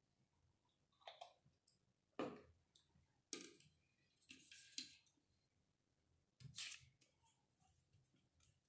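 A few quiet, separate clicks and knocks, roughly one a second, from small plastic paint bottles being squeezed and set down on a tabletop and a paintbrush being handled.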